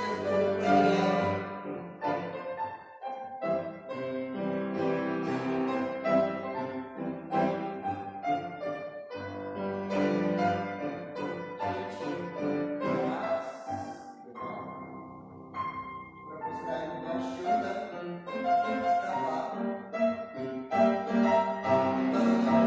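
Classical piano music playing, a flowing melody over held chords.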